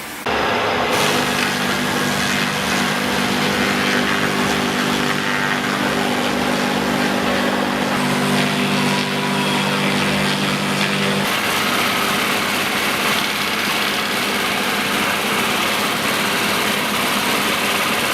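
Machinery running loudly and steadily, with a steady low hum that stops about eleven seconds in while the running noise goes on.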